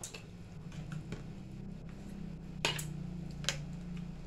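Eating sounds at a table: forks clicking and scraping in paper takeout boxes, with a few short clicks, the sharpest about two and a half seconds in, over a steady low hum.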